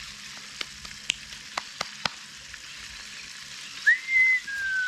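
Flour-coated tucunaré (peacock bass) frying in hot oil in a small pot: a steady sizzle with a few sharp pops of spitting oil in the first two seconds. Near the end a whistled tone comes in, rising, holding and then sliding down.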